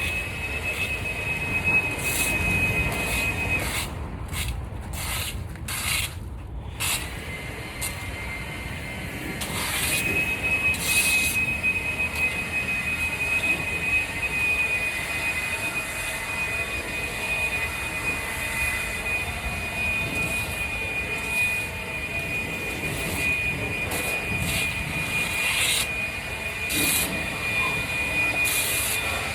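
Honda HRR lawn mower engine running steadily while shredding leaves, joined by the thin, steady high whine of an electric Craftsman leaf blower. The whine breaks off for a few seconds around four seconds in and then returns and holds.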